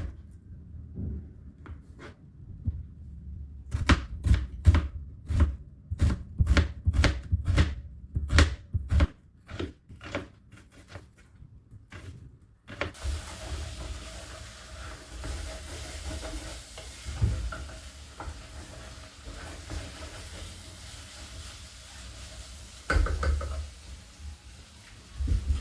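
A knife chopping on a cutting board in a quick run of strokes, then from about halfway a steady sizzle of food frying in a pan.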